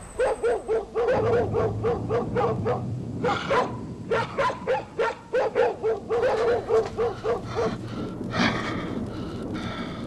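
A man's voice making a rapid run of short, dog-like yelping cries, about two to three a second, which stop about eight seconds in. It is the ogre straining to change his rough voice.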